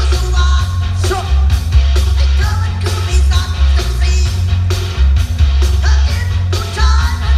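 A song with a singing voice over heavy bass and a steady beat, played loud through a large outdoor PA sound system.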